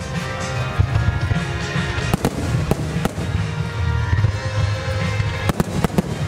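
Fireworks shells bursting in the sky with sharp bangs: a single bang just under a second in, a quick run of bangs around two to three seconds, and a tight cluster near the end. Music with a heavy bass plays steadily underneath.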